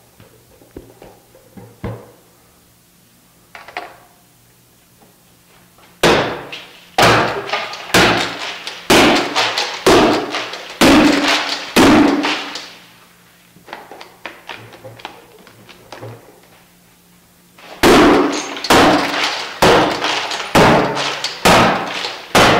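Baseball bat striking a cracked glass pane held together by security window film, in two runs of heavy blows about one a second with a pause of about five seconds between them. The glass crunches but stays in the frame, held by the film.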